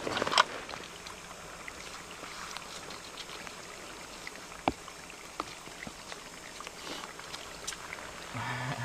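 Steady hiss of falling rain with scattered drips, and one sharper tick a little past halfway.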